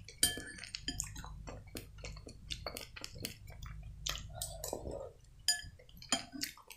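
Metal spoon clinking and scraping against a glass soup bowl in a run of short clinks, with a spoonful of solyanka taken and chewed.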